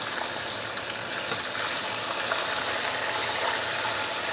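Hot oil sizzling steadily around a cornstarch-coated snapper fish head deep-frying at high heat as it is turned over with tongs.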